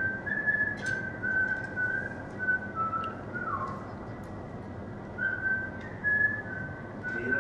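A person whistling a tune: a string of short held notes, one sliding down about halfway through, then a break of about a second before the tune picks up again.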